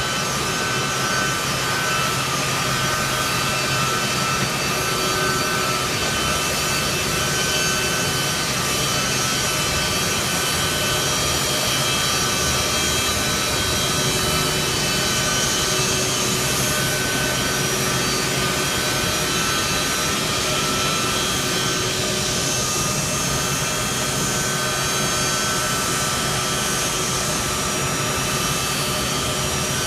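Boeing 757's twin turbofan jet engines running at low taxi thrust: a steady rush with several high, level whining tones.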